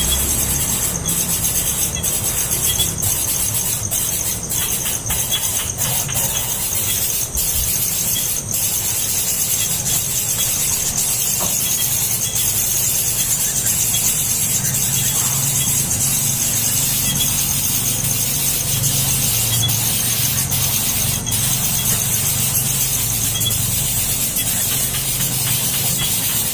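Baby birds begging for food: a continuous, high-pitched chorus of squealing cheeps from several chicks at once.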